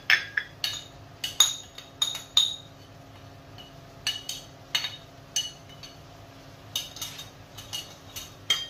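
Sharp, irregular clinks of a bowl being tapped over a frying pan to shake out the last of the mixed vegetables, each clink short with a brief high ring.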